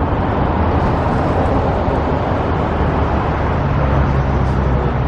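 Steady road traffic noise, the rumble of passing vehicles. A low engine hum grows stronger about three and a half seconds in.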